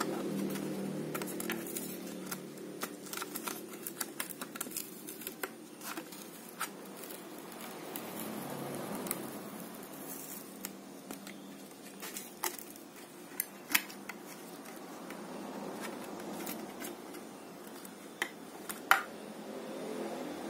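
A Hot Wheels blister pack being torn open by hand: the cardboard backing card ripping and the clear plastic blister crackling. Quick crackles and clicks come thickly for the first several seconds, then a few scattered sharp clicks follow, the loudest near the end.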